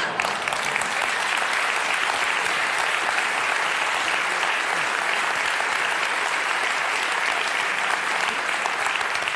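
A large audience applauding: dense, steady clapping that sets in at once and keeps going without a break.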